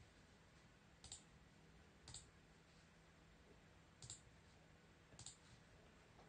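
Near silence: room tone with four faint, short clicks, about a second apart with one longer gap.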